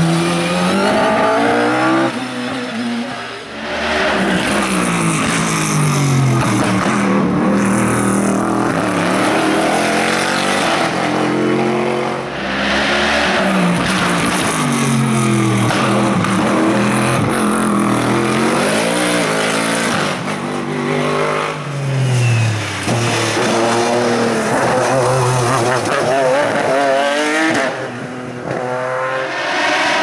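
Hillclimb race cars, a single-seater and sports prototypes, accelerating hard through bends one after another. The engine note climbs and drops again and again with each gear change and lift of the throttle.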